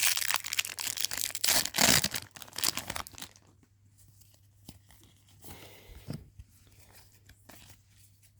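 Foil wrapper of a Pokémon booster pack being torn open and crinkled for about three seconds, then only faint rustling.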